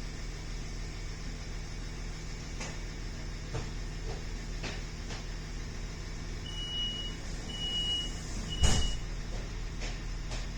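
Inside a regional passenger train carriage: a steady low rumble with a few light knocks, then three high beeps of about half a second each, a door-closing warning, and a loud thump as the sliding doors shut on the third beep.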